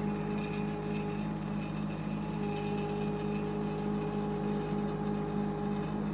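Shanding 1-ton mini excavator running steadily with an even, pulsing engine hum, plus a higher whine that drops out about a second in and comes back about halfway through.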